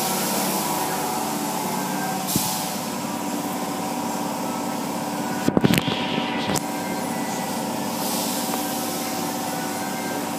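Automatic car wash heard from inside the car: water spray hissing against the windows in swelling passes over a steady machinery hum. A little past halfway comes a cluster of thumps as the cloth wash brushes slap the car.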